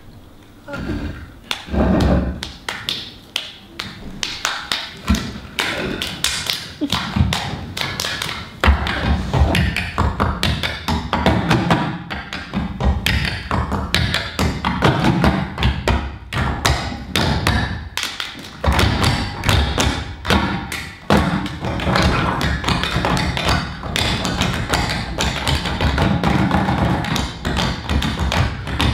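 Hands drumming on a wooden table top in a fast ensemble rhythm: rapid taps mixed with deep thumps. The playing is sparse at first and becomes dense and continuous about a third of the way in.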